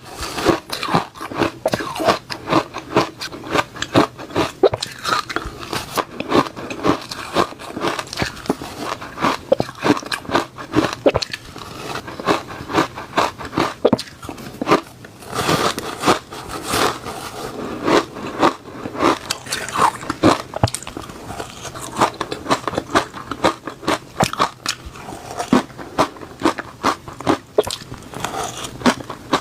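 A person biting and chewing shaved ice close to the microphone. The crunches and crackles come rapidly and irregularly, without pause.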